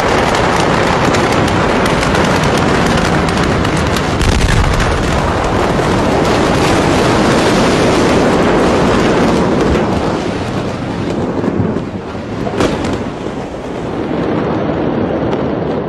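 Large building fire crackling with rapid, dense popping over a continuous rushing noise. It eases off in the last third, where a single sharp crack stands out.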